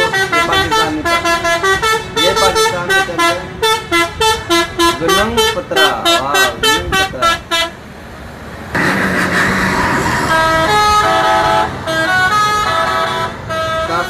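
Indonesian bus 'telolet' multi-tone horns playing a quick melody of short notes, about four a second, with sweeping up-and-down tones around the middle. After a short break just past halfway, a horn sounds longer held notes over a loud rushing noise.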